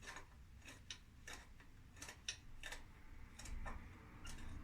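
Faint, irregular metallic clicks as a helicoil thread insert is wound into a bicycle crank arm's pedal thread with its installing tool, a few clicks a second.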